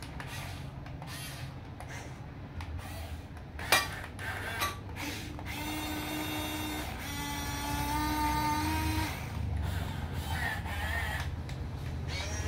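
Huina 1550 RC excavator's small electric gear motors whining as its boom and cab are driven, with a sharp click about four seconds in and a steadier whine from about five to nine seconds.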